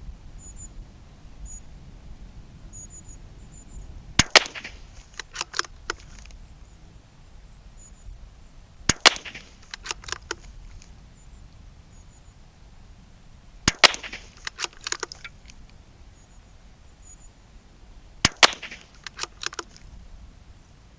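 CZ 457 Varmint .22 LR bolt-action rifle fired four times, about every four and a half seconds. Each shot is followed by a run of sharp clicks as the bolt is worked to eject the case and chamber the next round.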